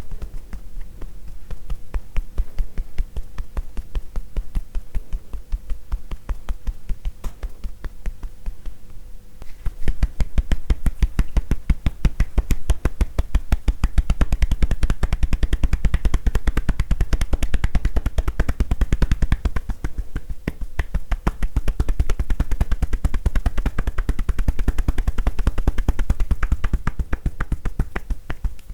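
Tapotement massage: hands rapidly tapping on a person's body with hollow, popping pats in a fast, steady rhythm. The tapping gets louder about a third of the way through.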